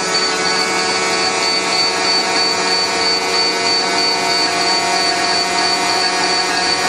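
School bus warning buzzer sounding continuously with the key switched on, a steady high-pitched buzz, set off by the open emergency exit door.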